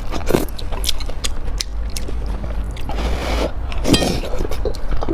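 Close-miked chewing and mouth sounds of someone eating, an uneven run of sharp clicks and smacks with a brief hissing stretch about three seconds in.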